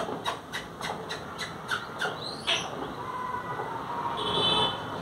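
A quick run of about eight sharp clicks or taps, roughly three a second, then a sharp falling squeak, and near the end a short, high-pitched squawk-like call.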